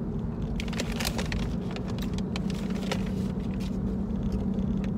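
Steady low hum of a car running, heard from inside the cabin. About a second in come a few short clicks and scrapes of eating from a small plastic cup.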